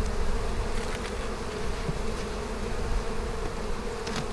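Honeybees buzzing in a steady hum around an opened hive, with a short click near the end.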